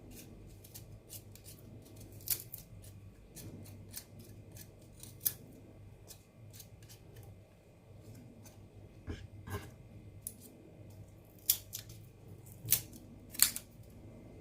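Garlic cloves being peeled: faint, irregular crisp clicks and crackles of papery skin coming away, with a few sharper snaps scattered through.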